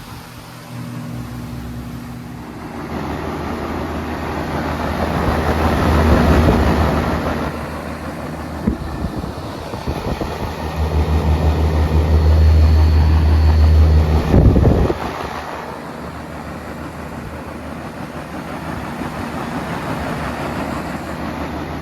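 Outdoor air-conditioner condensing unit running in cooling mode: the condenser fan's air rush over a low compressor hum, swelling louder twice.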